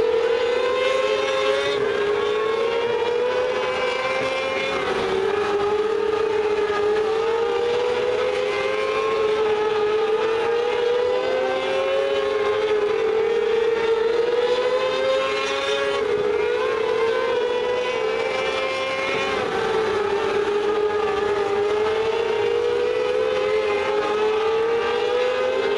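Several mini sprint race cars lapping a dirt oval at full throttle. The engine pitch climbs and then falls back, over and over, about every three to four seconds.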